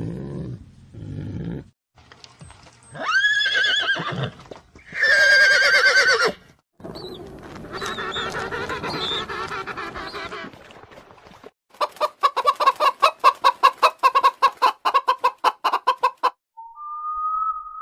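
Several animal sounds in turn: a low call at the start, then a few loud drawn-out calls with a wavering pitch in the middle, going with a penguin on screen. After that chickens cluck rapidly, about four or five clucks a second for some four seconds, and a steady high tone follows near the end.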